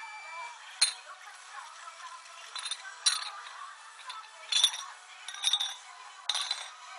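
Punches landing: six sharp smacks at uneven intervals.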